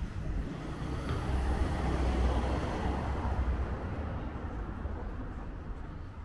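A motor vehicle passing close by: a low rumble of engine and tyres that swells over the first two seconds, is loudest around two to three seconds in, then fades away.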